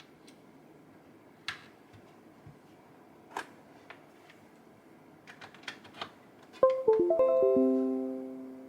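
A few light scattered clicks, then near the end a quick falling run of about seven plucked-string notes, like a guitar or harp sweep, that ring on and fade out.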